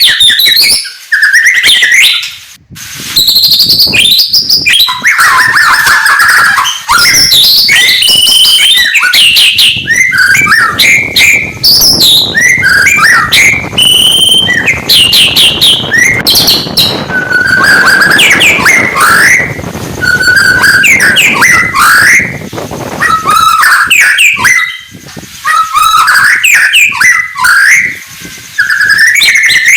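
White-rumped shama (murai batu) singing a loud, continuous, varied song of quick whistles and chirps, with a harsher chattering stretch in the middle.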